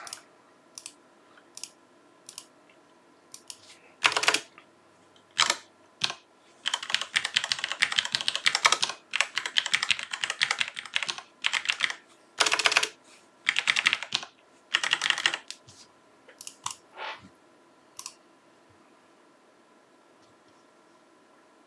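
Loud clicking of a Bluetooth computer keyboard being typed on. Scattered single keystrokes come first, then several seconds of fast, continuous typing and a few shorter runs, thinning out to odd clicks.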